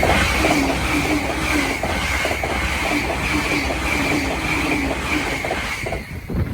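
A train passing close by at high speed: a loud rush with a rapid, regular clatter of wheels and a steady high whine over it, which falls away suddenly about six seconds in as the last car goes by.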